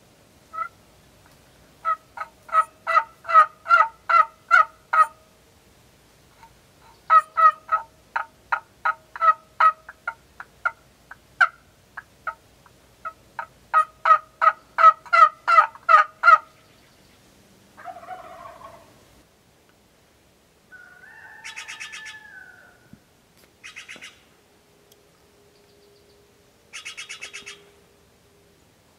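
Wild turkey yelping: three runs of short, evenly spaced notes, about three a second, followed by a few fainter, shorter calls.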